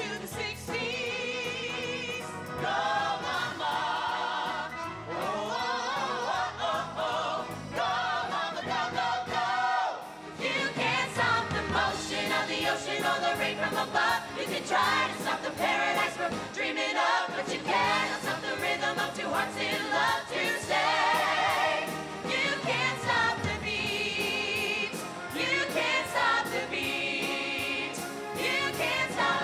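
A musical-theatre ensemble singing an upbeat show tune with a band. Wavering solo voices come first; after a short dip about ten seconds in, the full chorus comes in over a steady beat.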